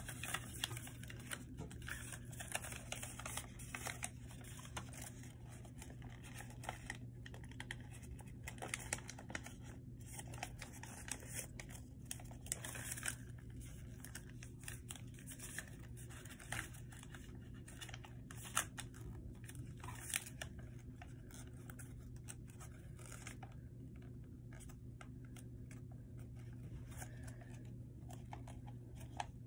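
A sheet of paper being folded and creased by hand: irregular crinkles, scrapes and small taps of paper, over a steady low hum.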